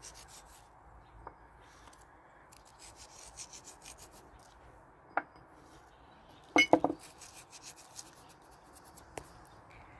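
Salt being applied to raw chicken pieces in a baking dish: faint rasping and rubbing, with a few light clicks and a louder short clatter about two-thirds of the way through.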